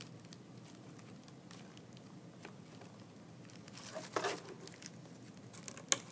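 Faint rustling and crinkling of glued tissue paper being picked and torn away at the edges of a small wooden craft, with a louder crinkle about four seconds in and a sharp click near the end.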